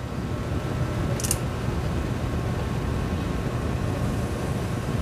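A fan running with a steady low hum, and a short sharp click about a second in.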